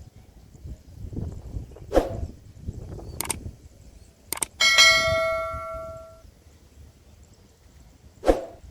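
A bell struck once, ringing out for over a second before it fades, among several sharp knocks.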